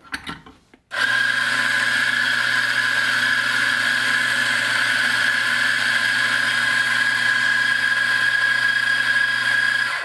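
Electric espresso grinder running, grinding coffee straight into a portafilter. The motor starts about a second in, runs steadily with a low hum and a high whine, and cuts off at the end.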